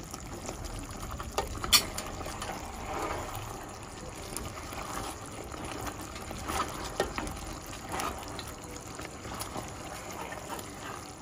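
Chicken feet in thick curry sauce being stirred in a pot with a plastic spoon: wet sloshing of the simmering sauce, with a few light knocks of the spoon against the pot, the sharpest about two seconds in.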